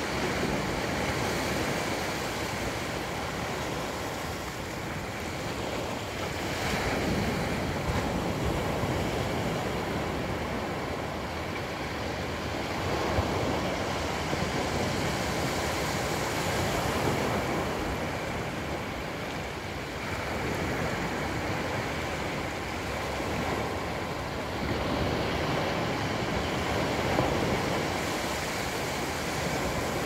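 Small waves breaking on a sandy beach and washing up over the sand: a steady surf rush that swells and eases every few seconds.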